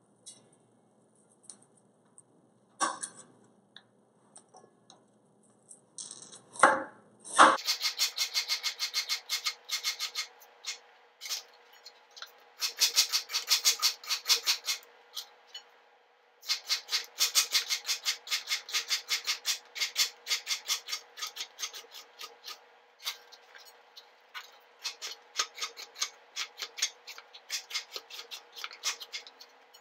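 Chef's knife slicing a daikon radish into thin coins on a plastic cutting board. It starts as a few scattered taps, then from a few seconds in becomes a fast, steady run of crisp cuts striking the board, with a short pause partway through.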